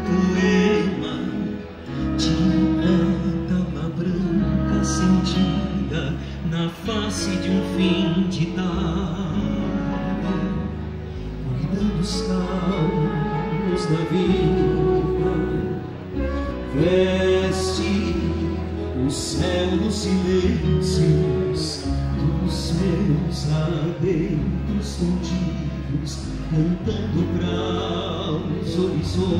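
Live gaúcho folk song: a male voice sings over strummed and plucked acoustic guitars, a flute melody and a steady electric bass line.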